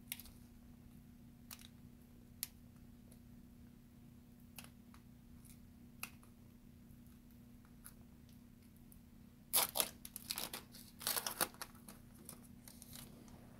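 Quiet handling sounds: scattered faint ticks, then a few short rustling scrapes a little after halfway, as trading cards and their packaging are handled.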